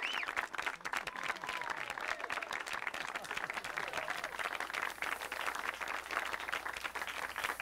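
Audience applauding and cheering, with a few whoops in the first second or so. The applause cuts off suddenly at the end.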